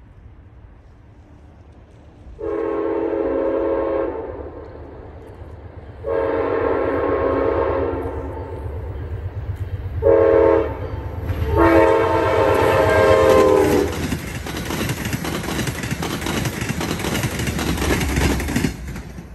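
Amtrak Downeaster passenger train sounding its horn at a grade crossing in the long-long-short-long pattern: two long blasts, a short one, then a final long one. The train then passes at speed with a rushing rumble and wheel clatter on the rails, which cuts off near the end.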